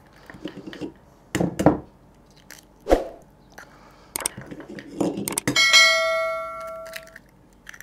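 Raw eggs being cracked on the rim of a bowl: several sharp taps a second or so apart. About five and a half seconds in, one strike sets the bowl ringing like a bell for over a second.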